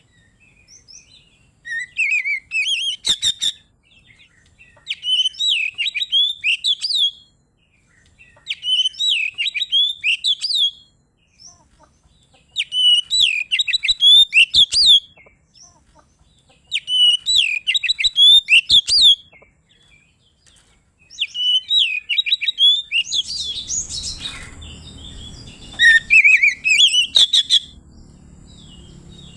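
Oriental magpie-robin (kacer) singing a full, clear song in phrases of rapid whistled and chattering notes, each about two seconds long with short gaps, about seven times over. It is the bird's challenge song, calling out a rival. A low background hum comes in near the end.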